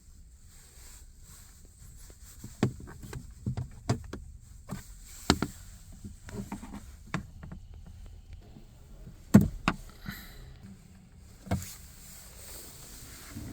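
Irregular sharp creaks and knocks from a Lada Granta FL's body or trim, about a dozen, the loudest about nine seconds in, over a low steady rumble: the squeak the owner sets out to fix.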